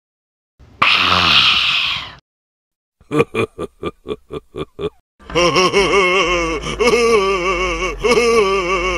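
A breathy gasp, then a laugh from a voice: a quick run of about nine short 'ha' bursts, followed by a long, loud laugh that wavers up and down in pitch.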